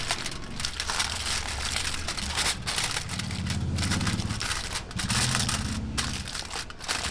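Aluminium foil crinkling and crackling as it is pressed and crimped by hand around the rim of a flan mould.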